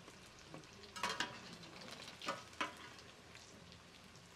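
Folded corn-tortilla tacos frying in shallow hot oil in an enamel pan, with a quiet steady sizzle. A metal spatula scrapes against the pan three times as the tacos are turned and lifted out.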